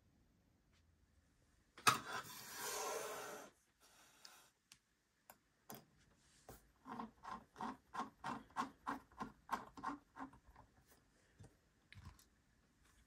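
Hard plastic model-aircraft display stand being handled on a desk mat. A click and a rubbing scrape come about two seconds in. In the second half comes a quick, regular run of about a dozen short rubbing strokes.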